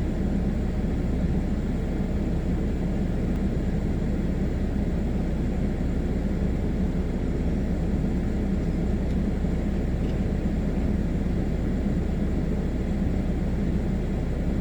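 Blower running steadily: a constant low hum over an even rush of air.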